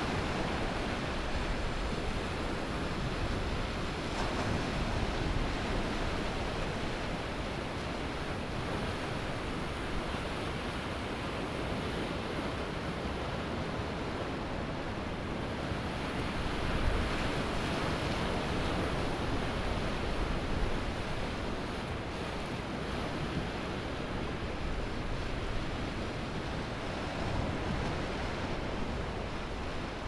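Ocean surf washing onto a sandy beach: a continuous rush of breaking waves that swells a little past the middle.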